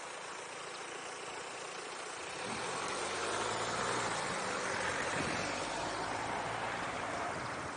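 A motor vehicle's engine running, growing louder about two and a half seconds in and then easing off a little, over a steady background hiss like running water.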